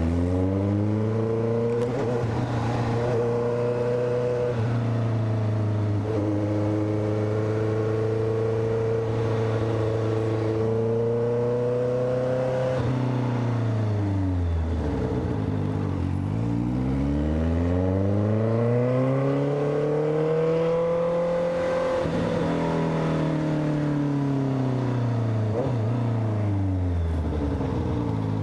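Honda CB650F's inline-four engine running under way. Its revs hold steady, fall away about thirteen seconds in, climb again as the bike accelerates, and fall away once more near the end.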